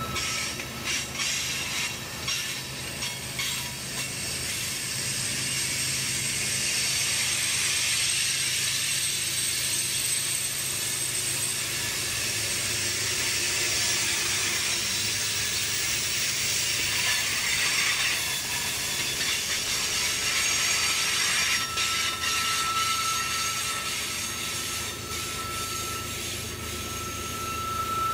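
Loaded oil tank cars of a freight train rolling slowly past on curved track: a steady rolling hiss of steel wheels on rail, with a thin, high, steady wheel squeal that comes in strongly near the end, and a few clicks over rail joints.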